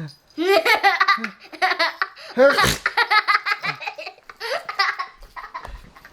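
A young child laughing hard in quick, high-pitched bursts that come in several runs. About two and a half seconds in, an adult gives a loud sneeze, and the child's laughter breaks out again straight after it.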